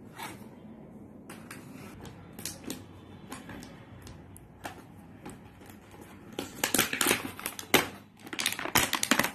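Clear plastic toy packaging being handled and pulled at, crackling and clicking. The sounds are scattered at first and grow louder and denser over the last few seconds.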